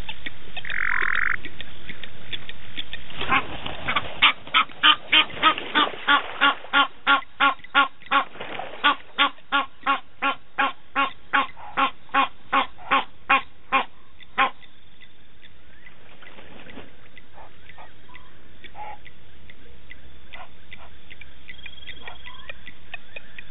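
An animal calling in a rhythmic series of about twenty short pitched calls, about two a second, which stops about fourteen seconds in.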